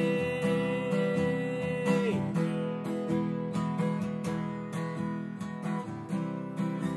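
Acoustic guitar strumming the chords of a song. A sung note is held over it until about two seconds in, then the guitar carries on alone.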